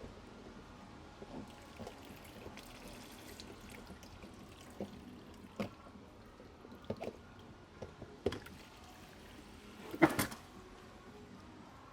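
Parts of an Intex spa pump being handled during disassembly: scattered small clicks and knocks, the loudest cluster about ten seconds in, over a faint trickle and drip of water.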